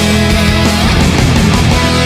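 Loud rock music with heavy, sustained bass, played through a PA sound system being demonstrated.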